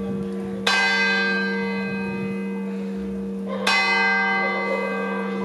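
Church bell tolling slowly: two strokes about three seconds apart, each ringing on and fading slowly.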